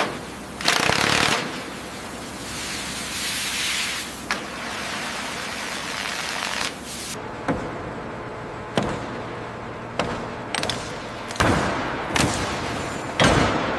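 Heavy dismantling work noise: about ten sharp bangs and knocks at uneven intervals, one longer burst near the start, over a steady hiss.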